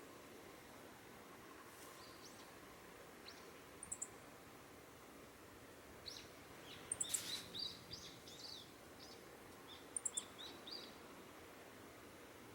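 Meadow bunting giving its call note: short, very high clusters of two or three sharp 'chi' notes, repeated every two to three seconds. A run of fainter, lower chirps comes in the middle.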